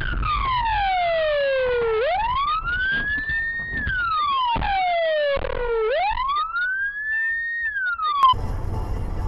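Police car siren wailing in a slow rise and fall, climbing over a couple of seconds and sliding back down, about two full cycles. It cuts off abruptly about eight seconds in, giving way to steady road noise.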